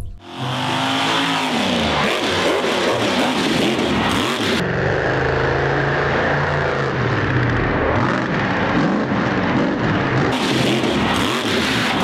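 Monster truck engine revving hard, over and over, its pitch rising and falling repeatedly as the truck runs and jumps a dirt course.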